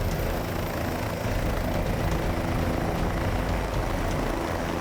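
A large engine running steadily: a constant mechanical drone with a low hum beneath it and no change in level.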